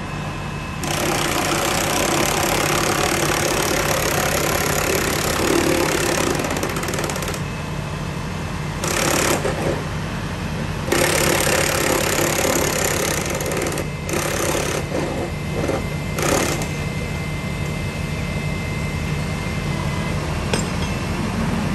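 Utility bucket trucks' engines running steadily, with repeated bursts of loud, harsh mechanical noise from the work at the pole. The first burst lasts about seven seconds and the later ones are shorter, from half a second to a few seconds.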